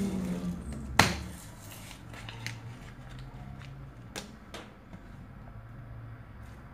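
Handling noise from small objects being set down and moved: one sharp knock about a second in, then a few lighter clicks and taps.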